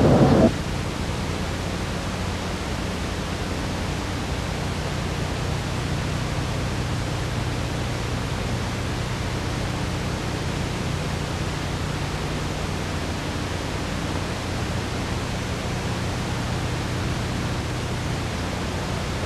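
Steady, even hiss with a faint low hum; the louder program sound cuts off abruptly about half a second in. This is the bare noise floor of an old analogue videotape's audio track.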